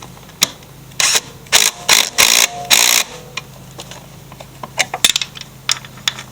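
A ratchet wrench tightening the bolt that holds the mower's blade clutch pulley, in five short bursts of ratcheting from about one to three seconds in, then a few scattered metal clicks. A steady low hum runs underneath.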